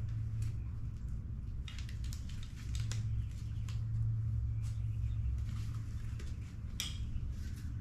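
Light rustling and scattered clicks of a nylon GoPro dog harness and its packaging being handled, with the straps and buckles worked by hand, over a steady low hum.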